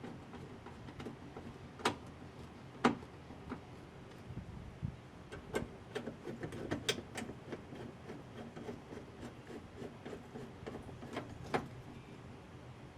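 Irregular light clicks and knocks, as of small parts and tools being handled, with a few sharper knocks about two and three seconds in, a busier run around the middle and one more near the end.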